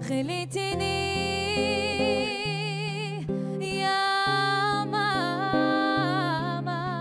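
A woman singing long held notes with wide vibrato, accompanied by an acoustic guitar.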